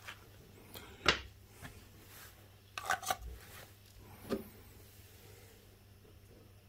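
A few light knocks and clicks of handling as a plastic oil funnel is set into an ATV engine's oil filler hole: single taps about a second in and past four seconds, and a quick pair near the middle.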